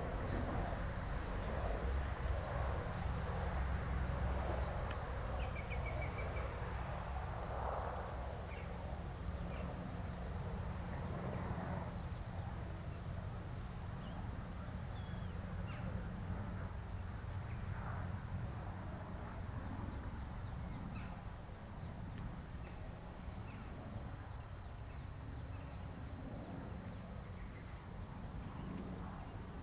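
Short, high-pitched chirps repeating about once or twice a second, over a low, steady hum of wasps at their nest.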